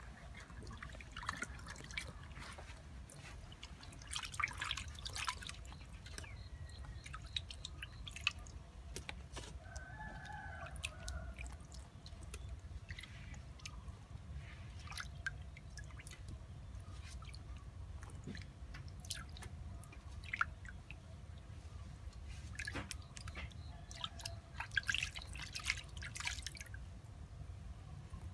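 Water splashing and dripping in a metal basin as whole fish are rinsed by hand and lifted out dripping, in scattered bursts with a busier stretch near the end.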